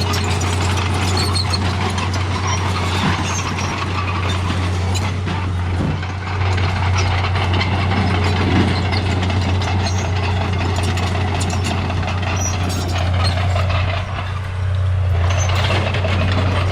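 Bulldozer engine running steadily: a constant low drone with a noisy mechanical clatter over it and a few short knocks.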